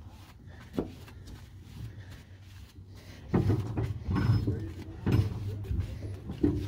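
Hand-wheel brake of a 1948 electric mine locomotive being turned by hand, its mechanism clunking. There is a sharp click about a second in, then several heavy clunks from about three seconds in.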